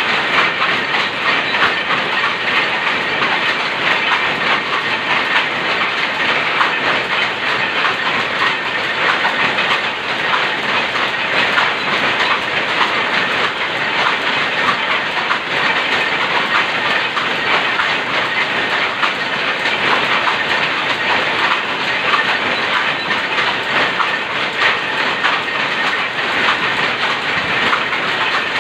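Power looms, a shuttle loom converted to rapier weaving plain cloth among them, running together in a loud, continuous, rapid clatter.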